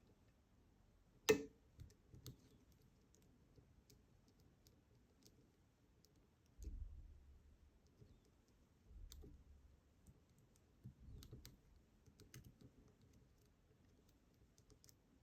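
Faint clicks of a lock pick and tension tool working the pins of an ASSA 700 pin-tumbler lock cylinder, with one sharper click about a second in and a few dull low bumps in the middle.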